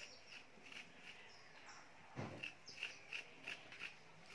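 Faint, repeated scraping of a metal spoon through unripe green banana flesh, short strokes about three a second, with one dull thump just after two seconds in.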